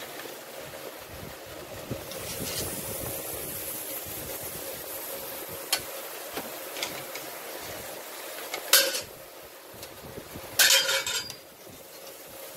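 Metal spatula knocking and clinking on a grill grate as salmon steaks are set down: a few light ticks, then a loud clack about nine seconds in and a short rattle of clacks near the end, over a steady background hiss.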